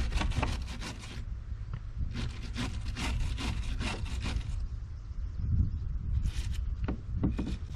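Hand scraper scraping rotten wood and old paint off a wooden shed door, in quick repeated strokes that come in two runs, with a few more strokes near the end.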